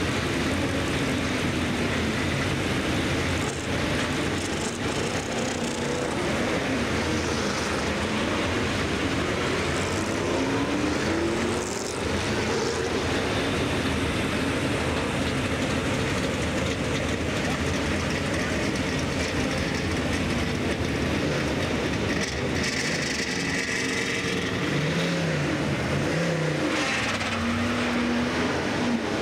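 Several Trans-Am race cars' V8 engines running as the cars roll slowly down pit lane, with the engine note rising and falling now and then as drivers blip the throttle, most clearly near the end.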